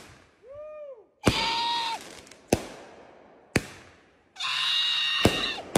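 Fireworks going off: five sharp bangs, roughly a second apart, with hissing, whistling rocket bursts between them.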